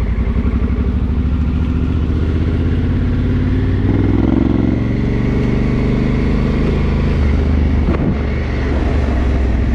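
Adventure motorcycle's engine running under way, picking up revs and getting louder about four seconds in as it accelerates, with a brief knock near eight seconds in.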